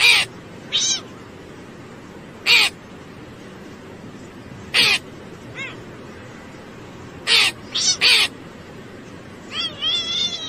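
A cat and a crow calling to each other: short, sharp calls, one every second or two, three in quick succession about seven to eight seconds in, and a quicker run of chattering calls near the end. A steady hiss runs underneath.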